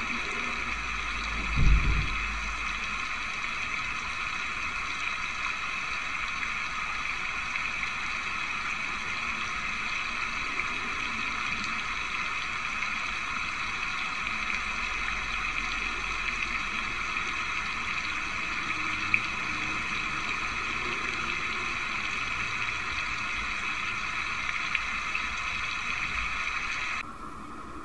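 Steady rushing noise like running water, with a low thump about two seconds in. The noise drops away shortly before the end.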